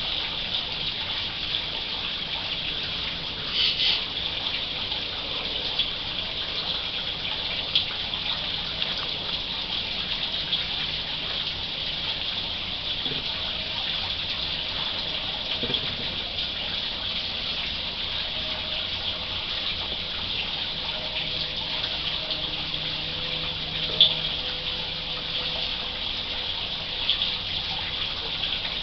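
A steady high hiss, with a few faint knocks and brushing sounds as a raccoon noses and rubs its fur against the trail camera.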